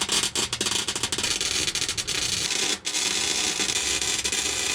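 Welding arc crackling steadily as a steel tank frame is welded to the underside of a bus, with a couple of brief breaks in the arc.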